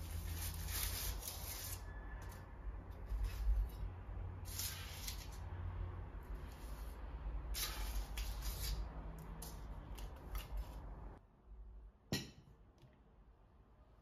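Stainless steel kitchen tongs scraping and clacking against a parchment-lined metal baking tray as roasted smashed potatoes are lifted off, in a few separate bursts of scraping over a low hum. About eleven seconds in the sound drops away, and a single sharp click follows a second later.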